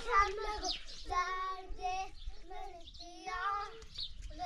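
Young children's voices singing a simple chant in a few drawn-out phrases with short pauses between them.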